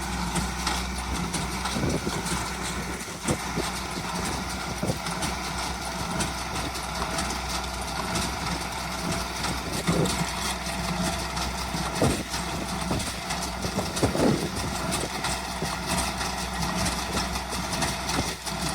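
LS 232 compact diesel tractor running steadily while pulling a New Holland Hayliner 68 square baler, with a few scattered knocks from the baler and the wagon.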